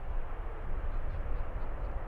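Airbus A350's Rolls-Royce Trent XWB engines at full takeoff power, heard as a steady deep rumble from the departing airliner.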